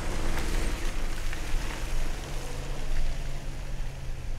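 Two V8 4x4s, a supercharged Range Rover and a twin-turbo Porsche Cayenne, accelerating hard up a slippery wet grass bank. The engines run steadily under load over a spattering hiss of tyres churning through wet mud.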